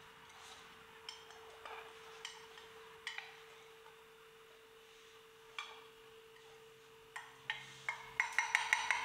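Wooden spoon and glass bowl knocking against a ceramic mixing bowl while flour is added to thick batter and stirred: a few scattered knocks, then a quick run of taps near the end. A faint steady hum sits underneath.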